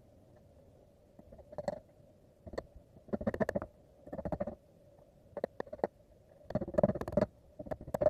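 Workshop carpentry noises: irregular short bursts of rapid clicking and rattling from wood and tools being handled, with a few single sharp clicks, over a faint steady hum.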